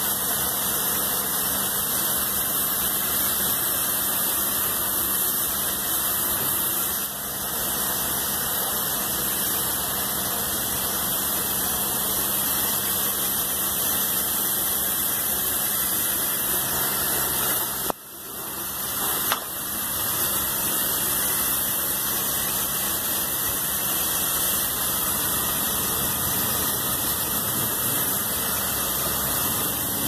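High-pressure washer running, its water jet hissing as it blasts dirt off the finned condenser coils of an air-cooled chiller, over a steady machine hum. The noise dips briefly once, about eighteen seconds in.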